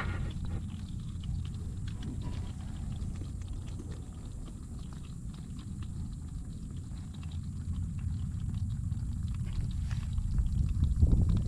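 Live blue crabs crawling over one another in a plastic cooler, their legs and claws making faint scattered clicks and scratches over a low steady rumble that swells near the end.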